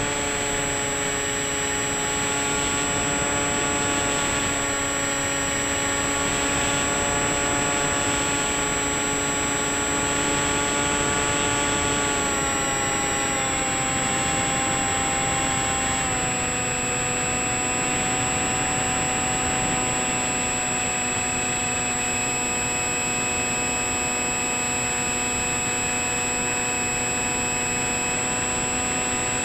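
Electric pusher motor and propeller of a Bixler 3 foam model plane, heard from the onboard camera in flight as a steady buzzing whine over wind rush. Its pitch steps down slightly twice, about twelve and sixteen seconds in. A thin, steady high-pitched whine runs alongside.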